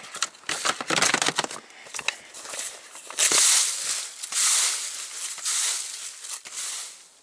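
Dry leaf litter crunching and rustling, first as quick crackling clicks, then in three long sweeps over the second half.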